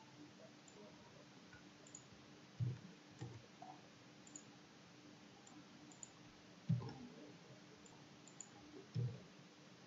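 Four computer mouse clicks, the first two close together about a quarter of the way in, the others a few seconds apart, over faint room hiss and a low steady hum.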